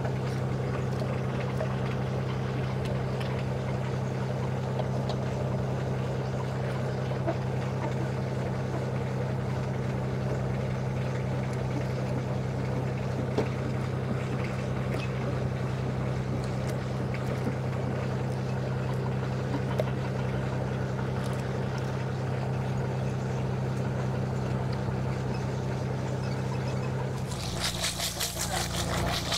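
A fishing boat's engine drones steadily at an even pitch. Near the end, water pours and splashes over fish in a plastic basket.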